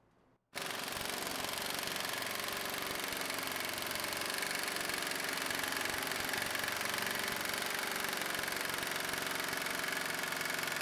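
Impact wrench hammering continuously through a 3.55 lb weighted socket built from stacked thick washers, driving the test bolt of a torque rig. It starts about half a second in and cuts off at the end.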